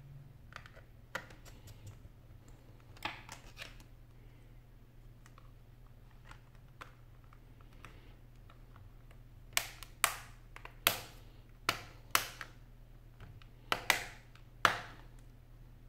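Plastic clips of a Samsung N8000 tablet's case snapping into place as the back cover is pressed shut along its edge: a few faint clicks at first, then about eight sharp snaps in the second half.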